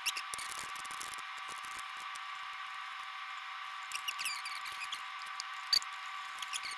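Small clicks, taps and scratching from handling small parts and tools at a workbench, over a steady high whine.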